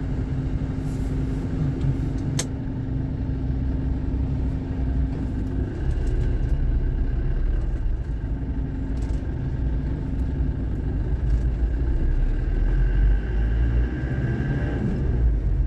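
Steady low rumble of an Isuzu Panther's engine and tyres heard from inside the cabin, rolling slowly in traffic. A steady hum sits over it for the first few seconds and returns in the middle. There is a single sharp click about two seconds in.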